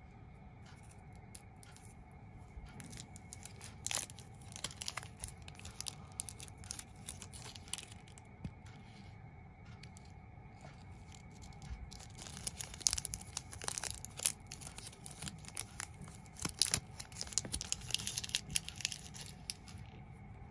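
Cadbury Dairy Milk bar's plastic wrapper being torn open and crinkled by hand: scattered crackles at first, then a dense spell of crinkling that stops shortly before the end.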